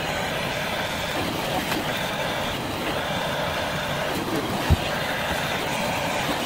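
Handheld gas torch burning steadily with a rushing hiss, heating a copper pipe joint to solder on a new ball valve. One short knock about two-thirds of the way through.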